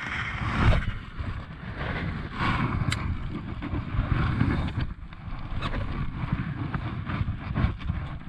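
Wind buffeting the microphone as a low rough rumble, with clothing rustle and short handling clicks as a fishing rod is swung for a cast and then held for the retrieve.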